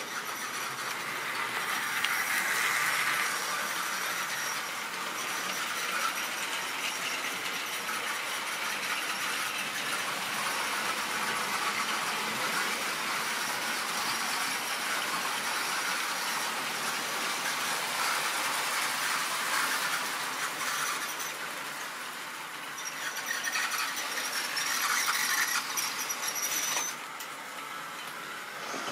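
Model railway train running on the layout's track, with wheels rattling on the rails and a high squeal that comes and goes. The sound swells twice and drops off suddenly near the end.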